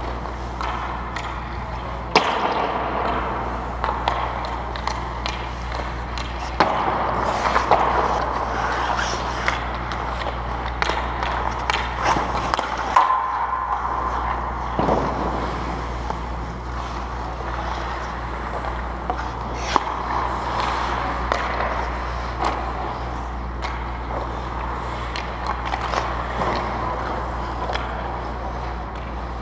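Ice hockey play: skate blades scraping and carving on the ice, with sharp clacks of sticks and pucks, the loudest about 2 seconds in and near the middle, over a steady low hum in the indoor rink.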